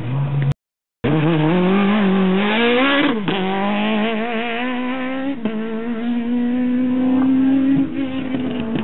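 Rally car engine at full throttle along a gravel stage. Its note climbs, drops sharply twice (about 3 and 5 seconds in) and climbs again, then holds high revs before easing off near the end. The sound cuts out completely for half a second just after the start.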